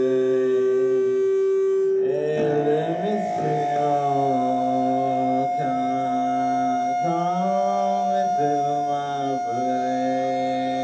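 Live band playing a droning piece: one steady held note that jumps up in pitch about two seconds in, with a sliding, chant-like vocal line under it.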